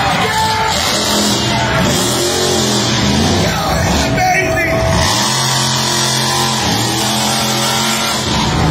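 Monster truck engine revving up and down in long swells, heard over loud rock music from the arena sound system.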